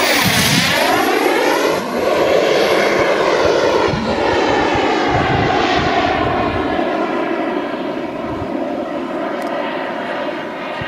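Giant-scale radio-controlled Tornado model jet flying past under turbine power. A high turbine whine drops in pitch as it passes close right at the start, then the steady jet rush carries on and eases off slightly as the model climbs away.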